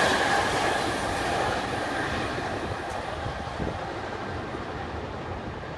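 Long Island Rail Road electric commuter train running past and pulling away, its rumble fading steadily as it recedes into the distance.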